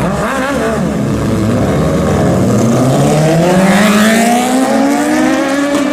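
Four-cylinder sport motorcycle engine revving: the pitch wavers up and down briefly, then climbs steadily for several seconds as the bike accelerates.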